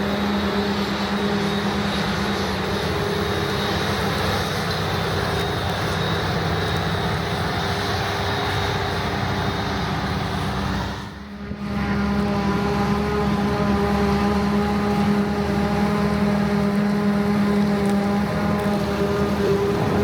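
Large diesel farm machinery running steadily at working speed, with a steady engine drone. The sound dips briefly about eleven seconds in, then carries on a little louder.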